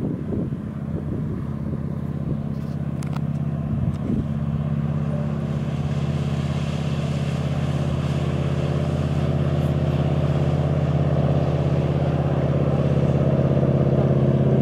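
Wooden runabout speedboat's engine running at a steady pitch at planing speed, slowly getting louder as the boat comes close, with the hiss of spray from the hull.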